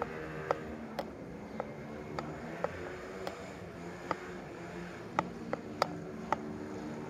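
Footsteps on stone paving, sharp clicks roughly twice a second, somewhat irregular. Faint low sustained notes that change pitch run underneath.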